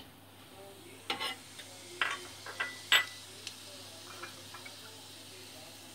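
Cumin seeds sizzling faintly in hot oil in a small pan, the first stage of a tempering, while a metal spoon stirs them with a few sharp clinks against the pan, the loudest about three seconds in.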